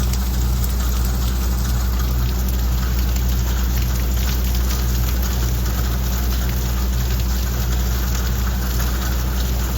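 Steady rain falling, over the low, steady drone of an idling engine.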